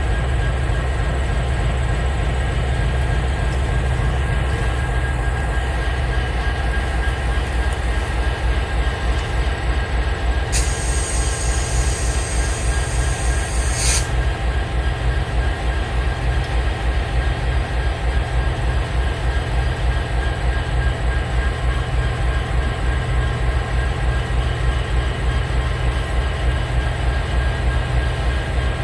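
Freight train of covered hopper cars rolling past, a steady rumble with a fast, even clatter of wheels over the rails. A high wheel squeal rises about ten seconds in and lasts some three seconds.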